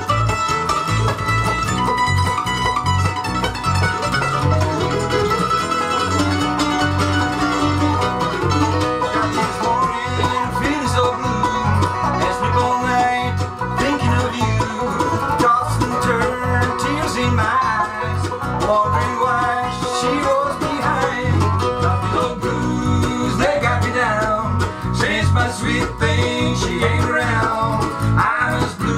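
Live bluegrass band playing: banjo, mandolin, acoustic guitar and bass together, with the bass pulsing steadily on the beat.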